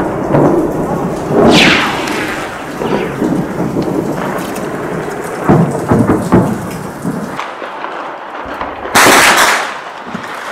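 Battle noise of heavy gunfire and explosions: a continuous rumbling din broken by several loud reports. The low rumble drops away about seven seconds in, and a sharp, very loud report comes near the end.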